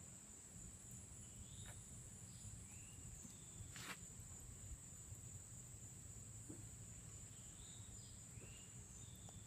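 Faint, steady high-pitched drone of insects, with a few short chirps and a couple of soft clicks.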